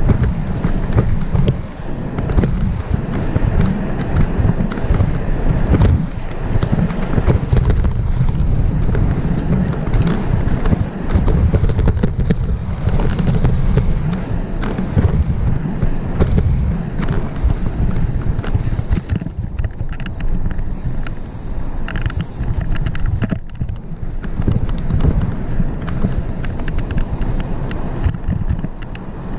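Wind rushing over a helmet camera's microphone as a full-suspension mountain bike runs fast down a dirt singletrack, with irregular knocks and rattles from the bike and its tyres over the bumps.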